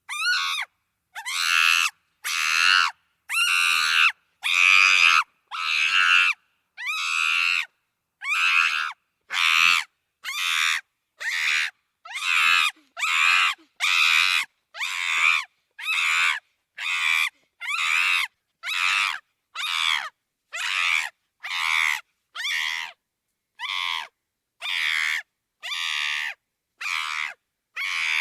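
Chimpanzee screaming: a long run of short, shrill screams, about one a second, each separated by a moment of silence.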